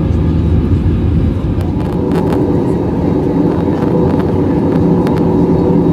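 Steady cabin noise of an Airbus A321 in flight, jet engines and rushing airflow heard from inside the cabin, with a few light clicks about two seconds in and again near the end.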